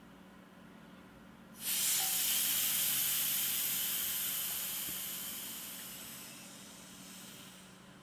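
5-litre mini keg's vent tap opened to air the keg: gas hisses out through the vent. The hiss starts suddenly about a second and a half in, then slowly dies away as the pressure equalises.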